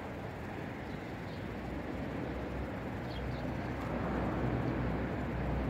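Wind buffeting the microphone as a low, steady rumble that grows a little louder toward the end, with a few faint bird chirps over it.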